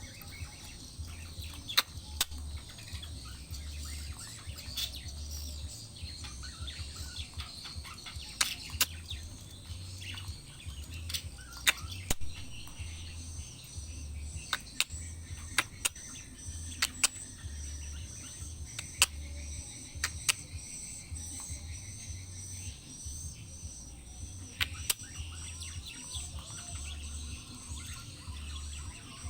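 Betet parakeet calls: short, sharp notes at irregular intervals over a steady high-pitched insect drone.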